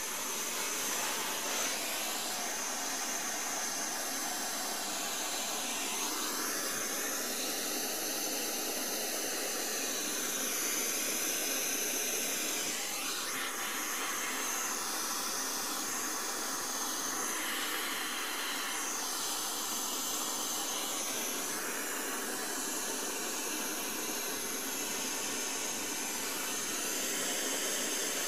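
Handheld gas blowtorch burning with a steady hiss, its tone shifting a little as the flame is moved, heating a copper pipe joint to melt tin solder into it.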